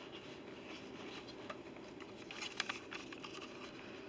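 Quiet handling sounds as a DSLR camera is lifted out of its packaging: light rustling of the wrapping and a scatter of small clicks and taps, most of them between about two and three seconds in.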